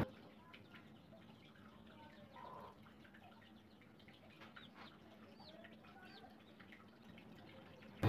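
Near silence with a few faint, short, high peeps from a young Aseel chick.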